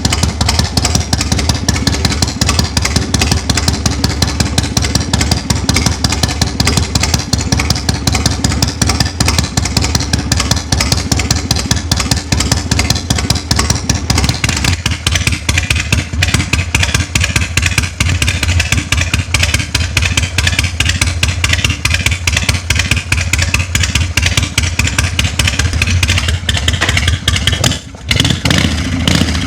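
Harley-Davidson Shovelhead V-twin engine running loudly through its exhaust, a steady rapid pulsing beat. The sound changes in character about halfway through and dips briefly near the end.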